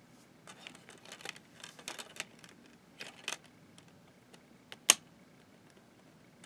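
Plastic multi-disc DVD case and its discs handled by hand: a run of small clicks and rustles, then one sharp plastic click, the loudest sound, a little later.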